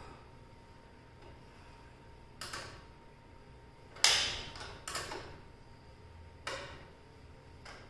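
Ratchet wrench tightening the mounting bolt of a motorcycle's slip-on exhaust, the tool clinking against the bracket. Four sharp clinks, unevenly spaced, the loudest about four seconds in, with fainter ticks between.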